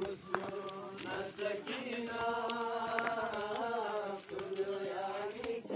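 Men's voices chanting a slow devotional lament, long held notes that waver in pitch, with a short break about four seconds in.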